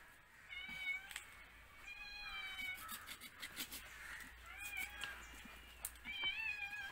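Domestic cat meowing repeatedly, about four separate meows spread over several seconds, with a few sharp clicks between them.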